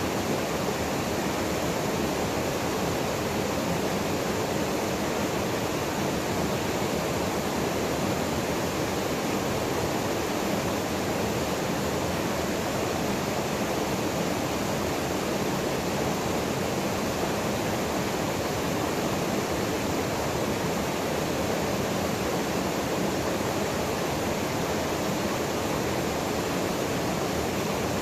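Waterfall pouring into a plunge pool: a steady, even rush of falling water that does not change.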